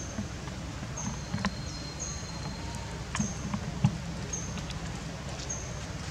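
Forest ambience: a short, high chirp repeats about once a second over a steady low rumble, with a few sharp clicks, the loudest about two-thirds of the way in.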